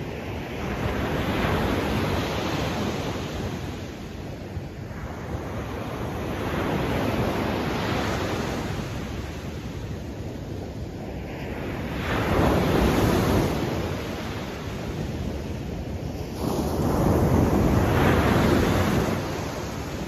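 Ocean waves breaking on a beach: the surf swells and falls away about four times, with the loudest breakers in the second half.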